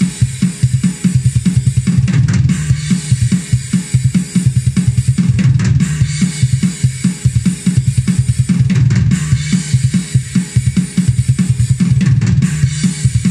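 Sampled metal drum kit, the 'True Cult' kit of the Ugritone KVLT Drums II plugin, playing a fast old-school death/black-metal pattern at 145 BPM: rapid kick drum strokes under a continuous cymbal wash. The pattern breaks off briefly about every three and a half seconds.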